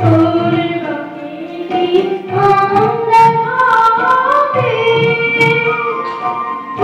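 A boy singing into a microphone, accompanied by harmonium and tabla; the voice holds long notes and slides slowly between pitches, with occasional low drum strokes underneath.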